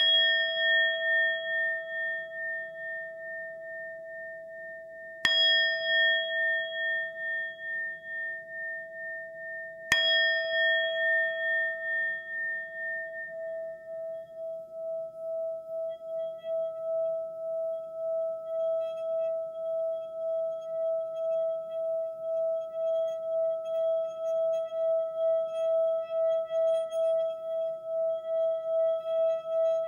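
Singing bowl struck three times about five seconds apart. Each strike rings out in a long, clear tone, and from about halfway through the tone is held, wavering in a steady pulse.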